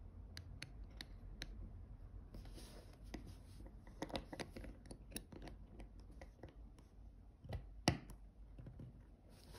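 Faint scattered clicks and light scrapes of a metal two-pin case-back wrench being fitted and adjusted on a stainless-steel watch case back, with a sharper click just before eight seconds in.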